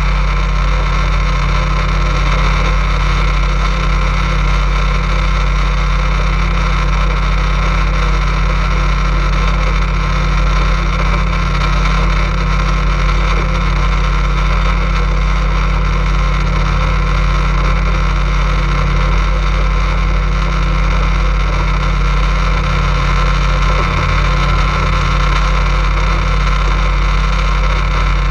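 Boat motor running at a steady speed while under way, an unbroken loud drone that holds level throughout.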